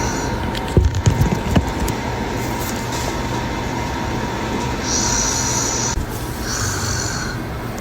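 A person snoring in sleep: a steady low rattling rumble, with a few louder jolts about a second in and hissing breaths near the end.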